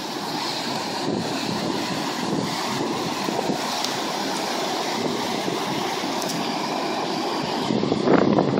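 Steady rushing of a river in flood, with wind buffeting the microphone, gustier near the end.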